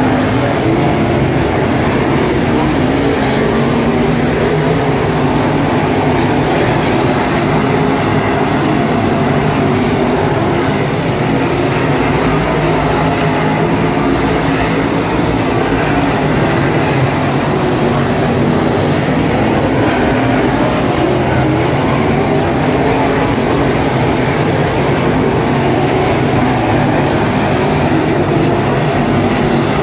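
Field of dirt super late model race cars running laps, their V8 engines making a steady, loud, unbroken drone.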